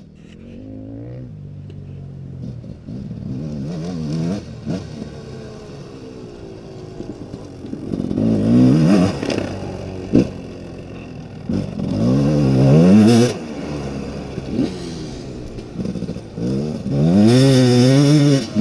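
Enduro dirt bike engine revving in repeated bursts, the pitch climbing with each twist of the throttle and dropping back between them, with a few sharp clicks along the way.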